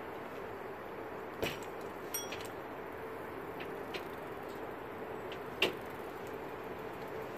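Steady outdoor hiss with a faint hum, broken by a few sharp clicks and knocks. One about two seconds in has a brief metallic ring, and the loudest comes about five and a half seconds in.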